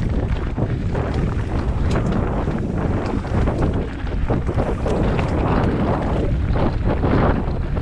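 Wind buffeting the microphone over the rumble of a mountain bike riding rough, stony ground, with frequent small knocks and rattles.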